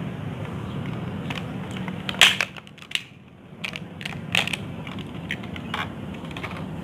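Small plastic and metal Beyblade top parts clicking and clattering as they are taken apart and handled, with the loudest click about two seconds in and several lighter ones after.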